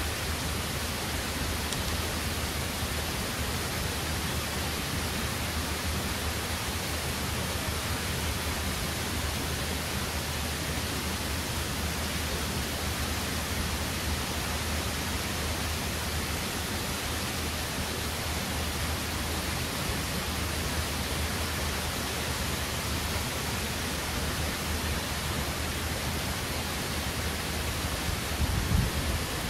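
Steady, even rush of Tempesta Falls, a waterfall cascading down a rock chute, with a brief low thump near the end.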